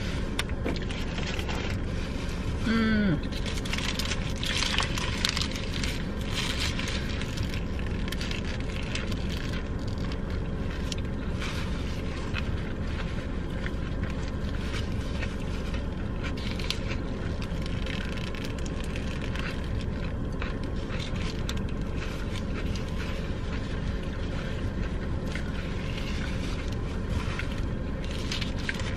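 People eating in a car: chewing, with small clicks and crackles of paper wrappers and napkins, over a steady low rumble. A brief voiced murmur comes about three seconds in.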